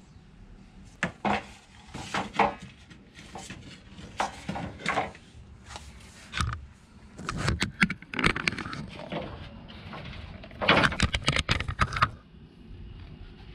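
Wooden boards being handled on a concrete floor: irregular knocks, scrapes and clatter as planks are pulled from a pile and set down, with a quick run of rattling knocks near the end.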